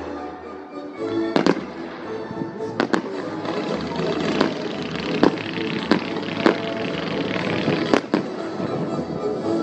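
Fireworks display: shells bursting with sharp bangs every second or so, and dense crackling building up from about three and a half seconds in, over music played along with the show.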